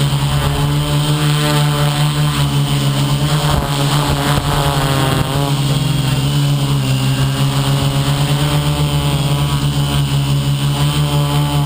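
Electric motors and propellers of an FPV model aircraft running steadily with a loud, even hum. The pitch wavers as the throttle shifts about halfway through, then settles.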